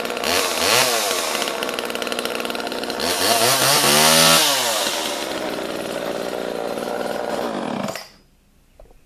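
Homelite XL two-stroke chainsaw revving up and back down twice, the second rev longer and louder, then idling before it shuts off abruptly near the end. The owner thinks its piston rings are broken because it smokes heavily.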